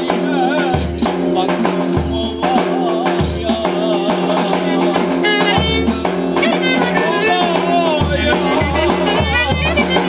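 Thracian wedding band playing live: a clarinet carries a wavering, heavily ornamented melody over deep davul bass-drum booms and the jingle of a tambourine, above a steady low drone.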